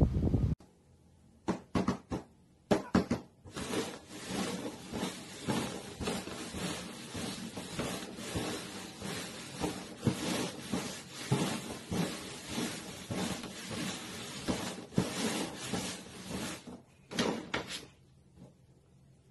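Red plastic cups being slid and knocked about on a cardboard box top, a dense run of scraping and tapping that starts with a few separate knocks and stops shortly before the end.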